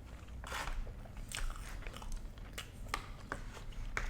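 Close-miked chewing and biting of food, with irregular wet mouth clicks and smacks.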